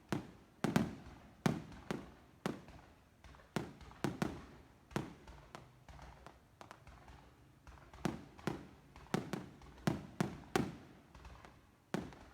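Aerial fireworks going off in an irregular series of sharp bangs, one or two a second, each trailing off in an echo, with a lull of about two seconds midway.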